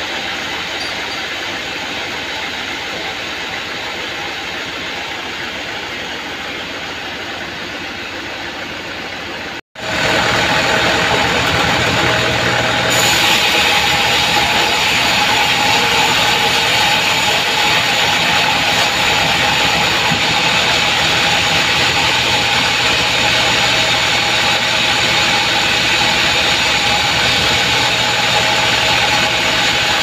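Band sawmill running steadily with a mahogany log on the carriage. It drops out briefly about ten seconds in and comes back louder, and from about thirteen seconds a harsher, higher sound joins as the blade cuts into the wood.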